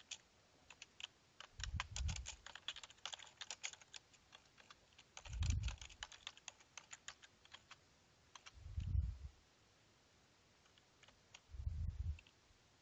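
Typing on a computer keyboard: a quick run of key clicks for about seven seconds, thinning to a few scattered clicks after that. Four short low thumps fall about every three seconds.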